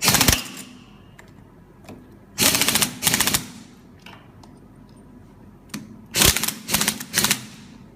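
Ratchet wrench tightening gearbox bolts: short bursts of rapid clicking, once at the start, twice about two and a half seconds in, and three times in quick succession near the end.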